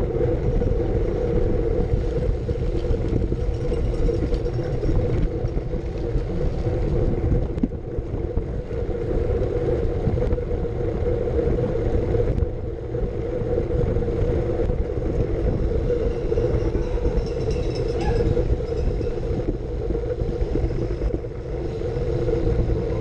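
Wind buffeting a bike-mounted camera's microphone at racing speed, over a steady rumble and hum from a Brompton folding bike's tyres and drivetrain on tarmac, easing briefly a couple of times.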